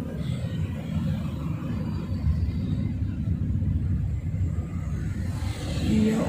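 Low, steady rumble of a car driving slowly, heard from inside the cabin, with a rush of noise that grows louder near the end.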